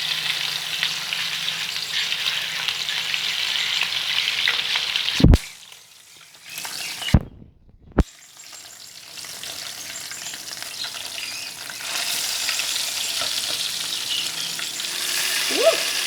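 Pieces of tongkol (mackerel tuna) frying in hot oil, a steady sizzle with crackling spatter. About five seconds in come three sharp knocks and the sizzle almost drops out for a few seconds, then it returns and grows louder.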